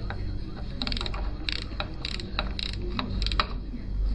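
Hand tool working on a Gilera Runner scooter engine: short bursts of metallic clicking, about five in four seconds, over a low steady hum.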